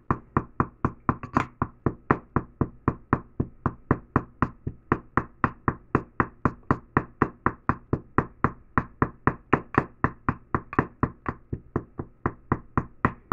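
Wooden pestle pounding a paste in a bamboo mortar: a steady run of knocks, about four a second.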